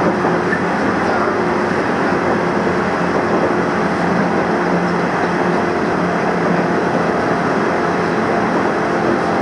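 Nishitetsu electric train running at speed, heard from inside the car: a steady running noise with a faint steady low hum and no change in pace.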